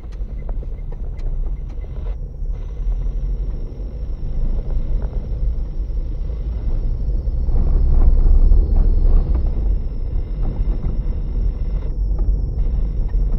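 Low rumble of a car's engine and tyres heard from inside the cabin while driving slowly over a rough, broken road surface, swelling louder for a couple of seconds in the middle.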